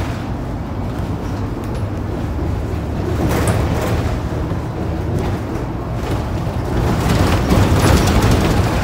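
Inside a Volvo 7700 city bus on the move: steady engine rumble and road noise, with a few short rattles, growing a little louder near the end.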